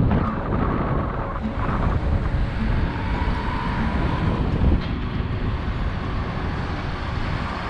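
Wind rushing over the microphone and tyre noise of a gravel bike rolling along an asphalt road: a steady rumbling noise without breaks.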